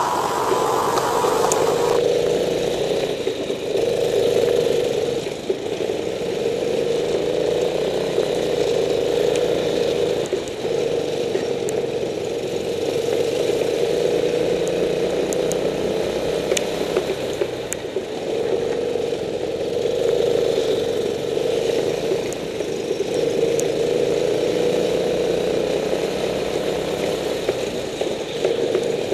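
Go-kart engine heard from a camera mounted on the kart, running continuously at speed, its note swelling and easing every few seconds as the throttle is worked through the corners.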